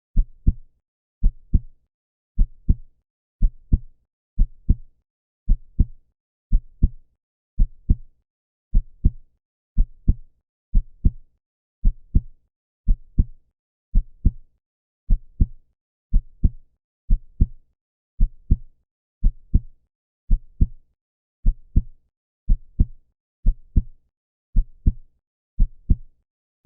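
Heartbeat sound: a steady, slow double thump (lub-dub) repeating a little less than once a second, about 55 beats a minute, with silence between beats.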